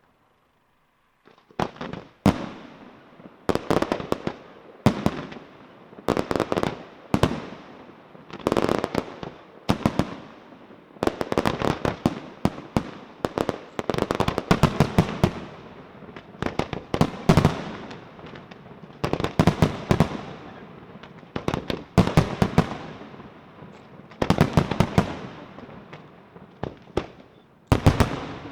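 Aerial fireworks display: after a brief hush, clusters of sharp bangs and crackles go off roughly once a second, each followed by an echoing tail.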